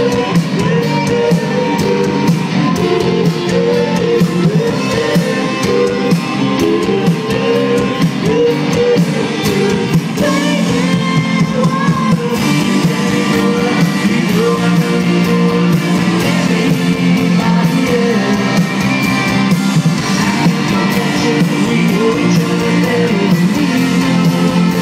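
Rock band playing live through a stage PA: electric guitars, bass and drums with a singer, heard from the crowd.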